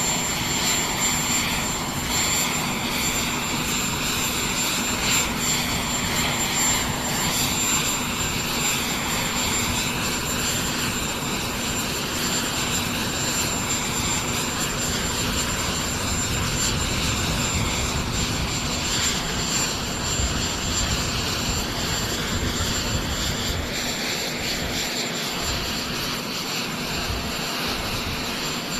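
Aircraft turbine engines running on an airfield apron: a continuous, steady roar with a thin high-pitched whine held throughout.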